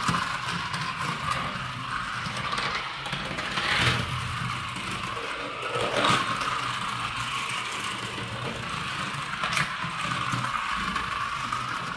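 Small battery-powered toy jeep running along a flexible plastic track: its electric motor whirs steadily, with a few sharp clicks along the way.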